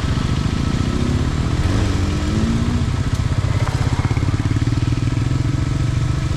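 Motorcycle engine running at low revs on a dirt climb, the revs rising for a couple of seconds about a second in, then settling into a steady pull.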